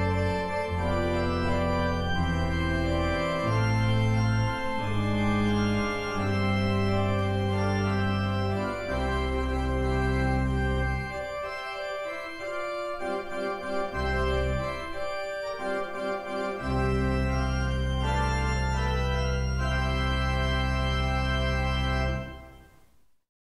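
Church organ postlude: sustained chords over deep pedal bass notes, closing on a long held final chord that dies away to silence about a second before the end.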